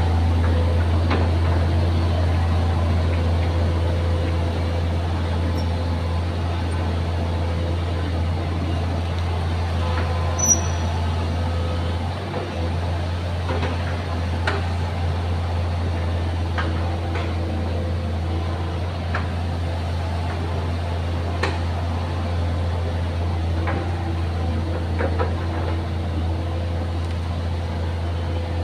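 Excavator's diesel engine running steadily with a deep, even hum, with a few faint sharp knocks now and then.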